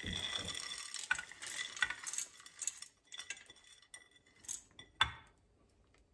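Peanuts, roasted chana and coconut pieces pouring from a bowl and rattling into a steel mixer-grinder jar in a dense clatter for about three seconds, followed by a few separate clinks.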